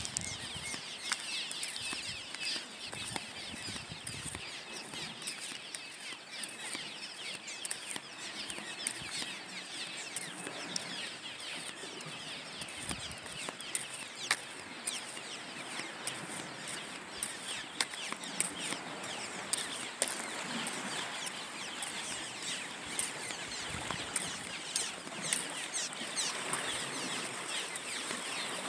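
Fast-flowing river swollen by heavy rain: a steady hiss of rushing water, with scattered small ticks and rustles through it.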